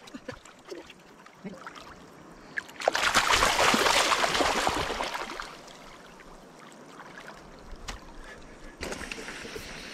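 Water splashing about three seconds in, lasting a couple of seconds, then fading back to a quiet hiss.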